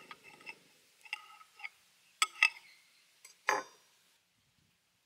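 Table knife cutting through a baked egg-stuffed bell pepper on a ceramic plate: small crunches and clicks, two sharp clicks about two seconds in, and a louder crunching scrape with a brief ring about three and a half seconds in.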